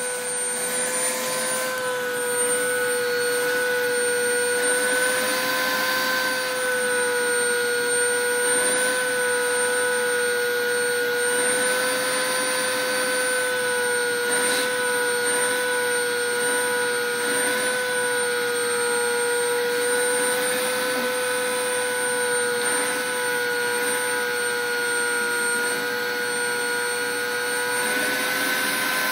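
Vacuum cleaner running steadily: a whining motor tone with slight wavers in pitch over a rushing of air, as the nozzle is drawn over a cat's fur.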